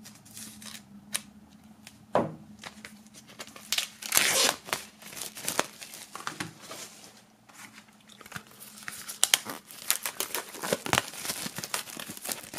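Plastic shrink wrap being slit with a knife and peeled off a CD digipak, crinkling and tearing in irregular crackles, with the loudest stretches about two, four and ten seconds in.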